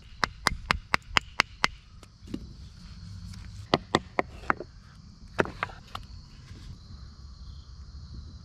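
A knife chopping through a thin wooden stick on a plastic cutting board: sharp knocks, about four a second in a run at the start, then in short groups of three or four.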